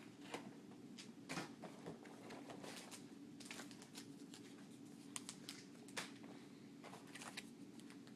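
Faint rustling, crinkling and light clicks of trading card packs and cards being handled, in a dozen or so short irregular bursts.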